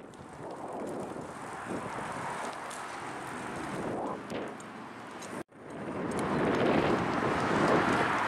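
Steady rumble of road traffic with wind on the microphone, cut off abruptly about five seconds in and resuming, then growing louder as traffic passes.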